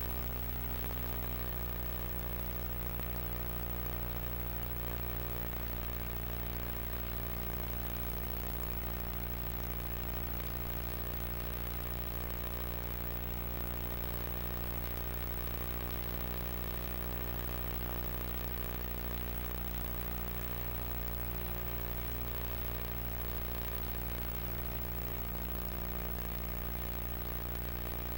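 Steady low hum with many overtones, unchanging throughout.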